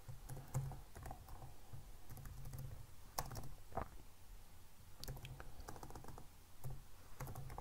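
Typing on a computer keyboard: faint, irregular keystrokes in short runs with pauses between them.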